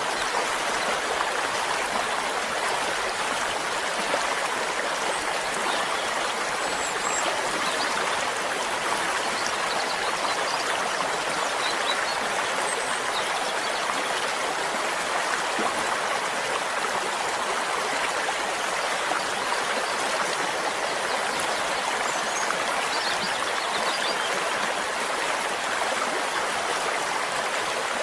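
Flowing stream: a steady, even rush and babble of running water.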